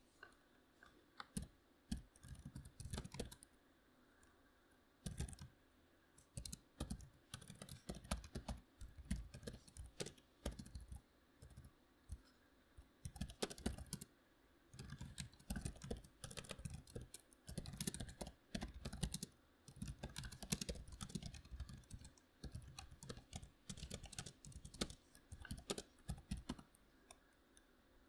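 Typing on a membrane computer keyboard: irregular runs of soft keystrokes with short pauses between bursts.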